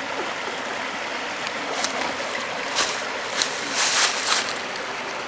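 Small waterfall: water running and splashing steadily, with a few brief louder hissing bursts between about two and four and a half seconds in.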